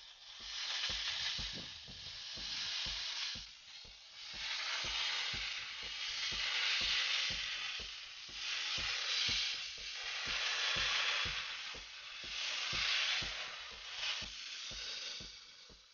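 Wagner 915 handheld steam cleaner jetting steam over an engine bay: a loud hiss that swells and fades in surges every couple of seconds, with rapid low pops underneath.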